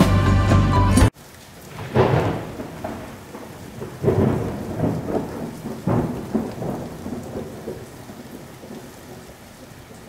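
Music cuts off abruptly about a second in. It is followed by a thunderstorm-like rumbling noise with rain-like hiss, surging about every two seconds and gradually fading.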